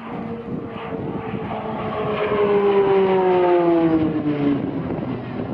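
RAF Short Tucano T1 single-engine Garrett TPE331 turboprop trainer flying past: its propeller and engine tone slides steadily down in pitch as it passes, loudest around the middle and fading toward the end.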